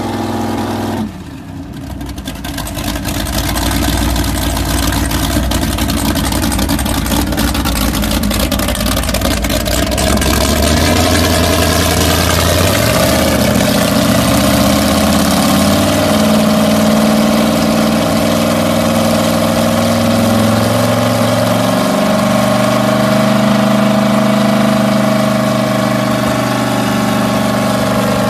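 Inboard big-block V8 marine engines running on a test run after a tune-up. The sound dips about a second in and builds back over the next few seconds, rises in pitch around ten seconds in, then holds at a steady speed.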